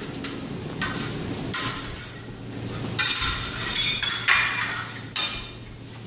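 Steel epee blades striking and scraping against each other during a fencing bout: a string of sharp metallic clinks, unevenly spaced, thickest about three to four seconds in.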